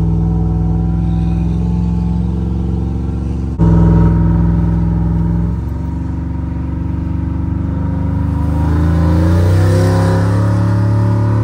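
Cammed 6.0-litre LS V8 (bored to 370 cubic inches) in a Chevrolet Silverado, heard from inside the cab, running under way. About three and a half seconds in it jumps louder for a couple of seconds, then its note climbs steadily in pitch as the engine pulls the truck up to speed.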